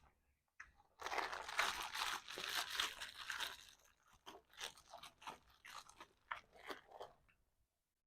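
A person chewing food close to the microphone: a couple of seconds of loud, dense crunching, then a string of separate crunchy bites that stop shortly before the end.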